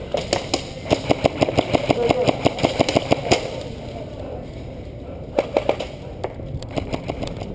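Airsoft guns firing: a fast, even run of sharp clicking shots for about three seconds, then a few scattered shots later on.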